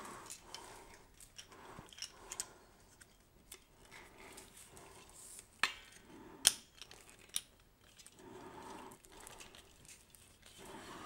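Røde PSA1 boom arm being flexed and handled: quiet rubbing of its moving joints with three sharp clicks of its parts a little past halfway, the middle one loudest.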